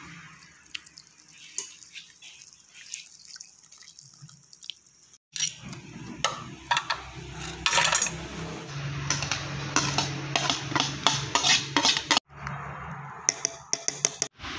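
Metal spoons clinking and scraping against a bowl while a runny fish-paste sauce is stirred. Light, scattered clinks at first, then a quicker, louder run of clinks from about a third of the way in.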